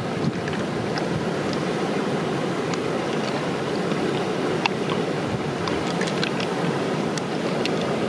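Steady rushing of stream water flowing over rocks, with scattered short wet clicks and ticks as fingers work through the opened mussel's flesh and shell.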